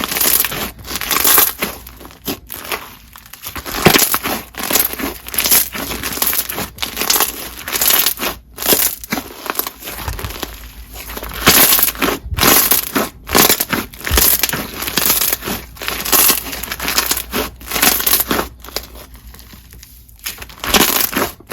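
Crunchy white-glue slime packed with slushy beads and bingsu beads being squeezed and worked by hand, giving dense, irregular crunching and crackling with sharp pops.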